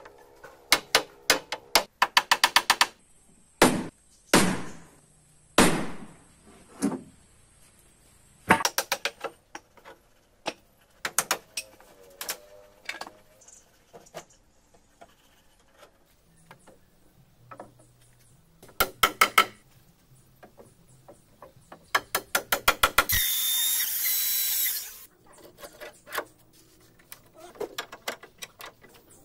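Hammer blows on wooden boat timbers, coming in quick runs of sharp strikes with pauses between. Late on, a handheld power tool runs for about two seconds.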